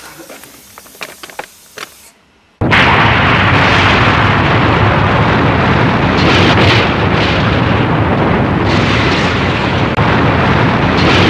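A burning dynamite fuse hisses and crackles, then cuts out briefly. About two and a half seconds in, a sudden huge blast sets off the long, loud, steady rumble of a tower block collapsing in a demolition.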